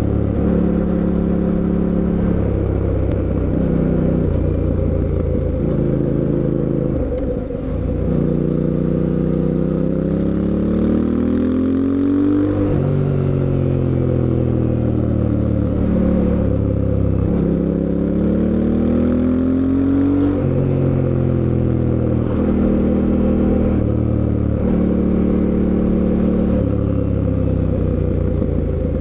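Fantic Caballero 700 Scrambler's parallel-twin engine riding through the gears, its pitch stepping up and down with the shifts. Twice the revs climb steadily for two or three seconds under acceleration, then drop at the shift.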